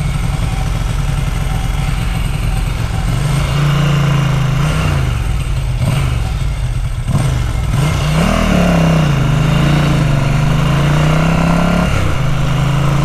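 Ducati 900SS air-cooled V-twin motorcycle engine running on the road, its revs rising and falling several times from about three seconds in before settling steady near the end.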